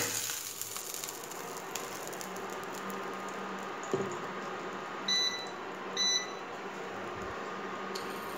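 Electric glass-top hob giving two short electronic beeps about a second apart, over a steady low hum from the hob; a light knock comes shortly before the beeps.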